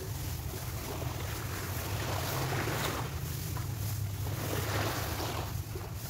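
Wind buffeting the microphone in a steady low rumble, over small waves washing onto the shore that swell and fade every second or two.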